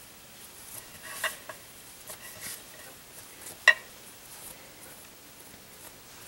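Soft rustling and patting of hands folding a small piece of floured bake dough into a ball on a countertop, with a sharp click a little before four seconds in.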